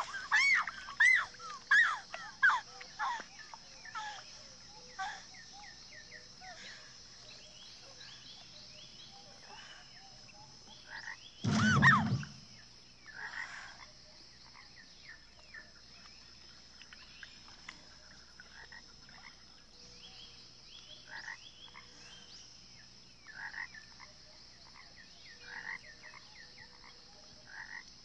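Frogs croaking around a lake, over a steady high insect-like hum. The calls are loudest and come in quick succession in the first few seconds, then thin out to scattered croaks. A brief, louder sound with a deep component comes about twelve seconds in.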